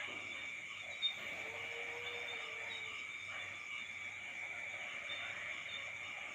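Steady chorus of night insects, crickets, in unbroken high-pitched trills. A single sharp click sounds about a second in, and a faint, lower held tone comes in for about a second just after.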